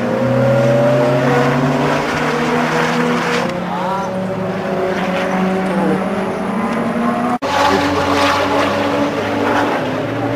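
Cars lapping a race circuit: engines running hard and rising and falling in pitch through the gears and corners, with more than one engine note overlapping. The sound breaks off for an instant about seven seconds in.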